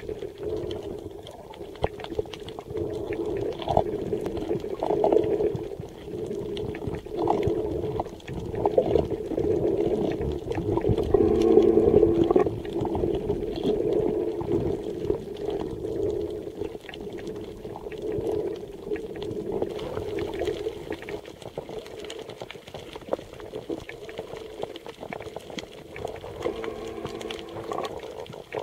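Underwater sound picked up by a snorkeler's camera: water swishing and gurgling around the camera in slow surges, over a steady low hum, with scattered sharp clicks throughout.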